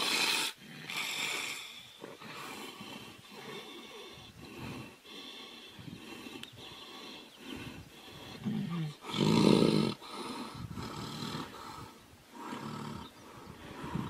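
Tigers growling and snarling as they fight, in irregular outbursts, with the loudest and deepest one about two-thirds of the way through.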